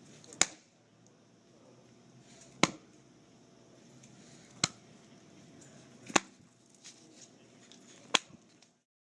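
Five sharp knocks or clicks, roughly two seconds apart, over faint steady room noise.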